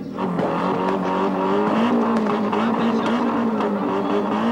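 Ford Escort rally car engines held at high revs on the start line, the pitch wavering with small blips, with occasional crackles.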